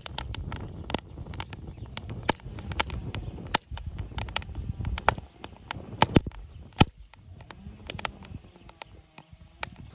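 Wood fire burning inside a split Swedish log, crackling with irregular sharp pops of varying loudness over a low rumble that eases off about halfway through.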